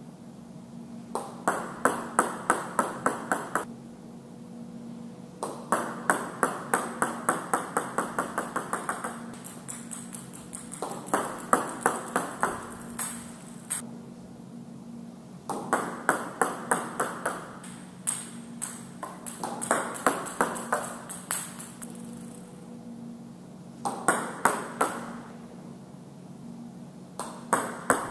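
Table tennis serves, one after another: each is a run of sharp pings from the celluloid ball on bat, table and floor, the bounces coming quicker and fainter as the ball settles. About seven serves in a row.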